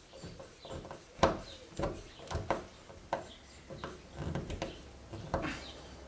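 Irregular clicks, taps and knocks of a small wood screw being worked through the plastic rear spoiler into the tailgate by hand. The screw goes in with difficulty. One sharper knock comes about a second in.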